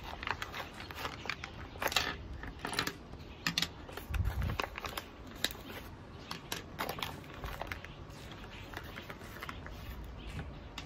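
Small plastic diamond-painting tools and their packaging being handled and set down one by one on a wooden table: scattered light clicks, taps and rustles, with a low thump about four seconds in.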